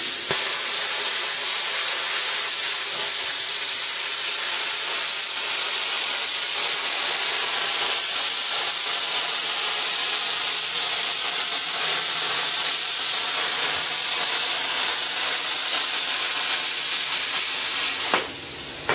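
Plasma cutter torch cutting steel plate: a steady hiss of compressed air and arc that stops near the end. The torch, just back in service after a patched hose repair, is firing and cutting.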